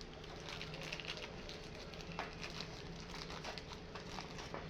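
Packaging being handled during unboxing: irregular rustling and crinkling with small clicks and taps, over a steady low hum.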